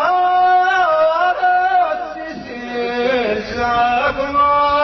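A man's solo voice chanting a sung verse of Amazigh Ahwash poetry into a microphone, in long held notes that waver and bend, dipping lower about halfway through before rising again.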